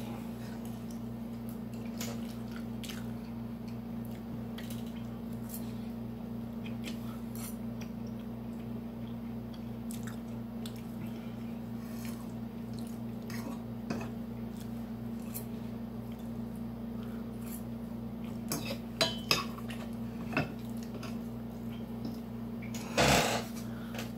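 Metal fork clicking and scraping against a bowl during eating, in scattered small clicks with a few louder knocks and one longer, louder scrape near the end. A steady low hum runs underneath.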